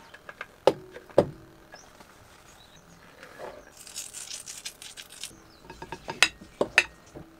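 Metal utensils clinking against a glass mixing bowl as dry scone ingredients go in and are mixed with a knife. There are a few clinks early on, a soft hiss of something poured from a jar about four seconds in, then a quick run of sharp clinks near the end as the knife works through the flour.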